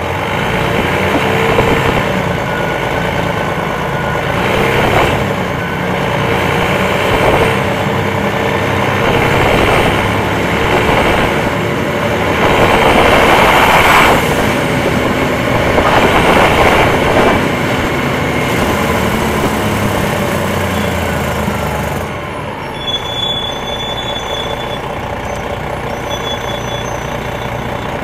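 Inside an MCI D4000 coach, its Detroit Diesel Series 60 inline-six diesel runs under load through an Allison automatic, the sound swelling and easing several times. About 22 seconds in it drops to a quieter, steadier running sound.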